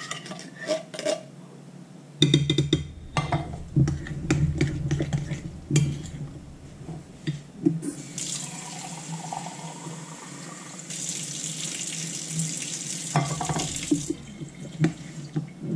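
A metal spoon scraping thick cream of mushroom soup out of a tin can and stirring it in a mixing bowl, with scattered clinks and knocks. About eight seconds in, a kitchen tap runs for about six seconds.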